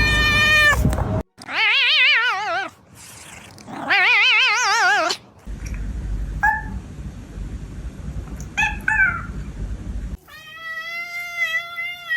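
Cats meowing and yowling in a string of short clips: two long wavering yowls, then a few short meows, and a long held meow near the end, with abrupt cuts between them.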